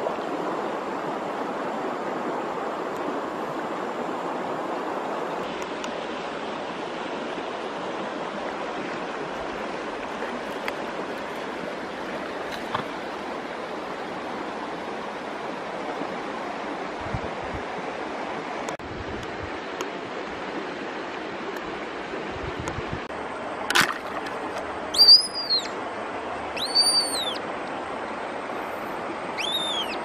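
Steady rush of flowing river water. Near the end there is a sharp snap, followed by a few short, high, arched whistling bird calls.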